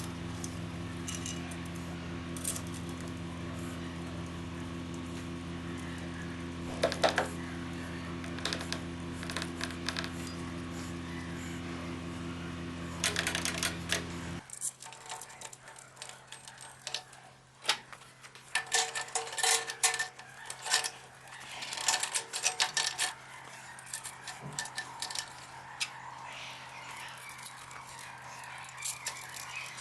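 A steady machine hum that cuts off suddenly about halfway through, with light metallic clinks and clatter of small metal parts and hand tools being handled, busiest in the second half.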